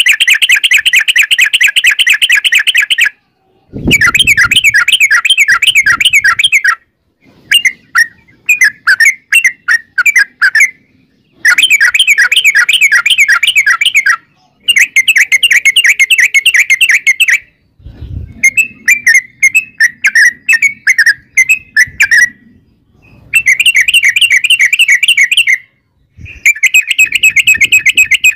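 Yellow-vented bulbul (trucukan) singing long, fast rolling trills: about eight loud phrases of rapidly repeated chirping notes, each two to four seconds long with short pauses between, and a low thump as two of the phrases begin.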